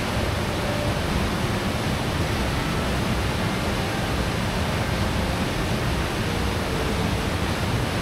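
Steady rush of a mountain stream's water cascading down a rocky valley.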